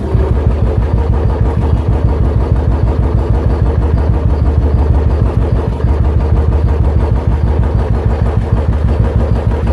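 Royal Enfield motorcycle exhaust through an aftermarket silencer, the engine idling with a steady, even thump.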